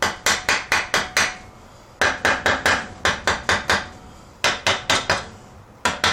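A hammer, not a rubber or brass mallet, tapping on a Briggs & Stratton small engine in quick runs of four to seven sharp blows, about five a second, with short pauses between runs. It is knocking around the edges of a stuck part to loosen it.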